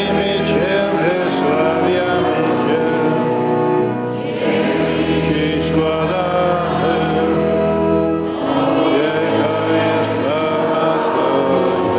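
A group of voices singing a slow liturgical chant over sustained organ tones, in three phrases of about four seconds each, with the long echo of a large church.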